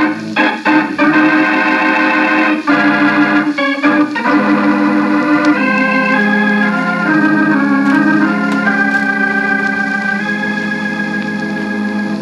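Organ bridge music from an old-time radio drama: a series of held chords that change every few seconds, growing slowly softer toward the end. Played back from cassette through a boombox speaker.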